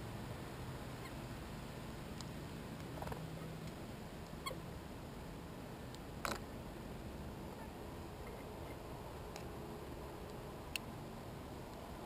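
American goldfinches feeding at a clear plastic window feeder: a few short, sharp clicks of bills and seeds against the plastic, the loudest about six seconds in, over a steady low hum.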